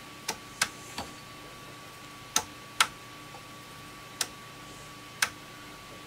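Rotary switches of a Fluke 343A calibrator clicking through their detents as the knob is turned, the wafers driven by a newly fitted 3D-printed shaft: about seven sharp clicks at uneven intervals.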